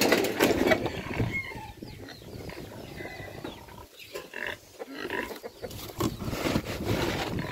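Pigs calling at feeding time, loudest in the first second or so and dropping off around the middle.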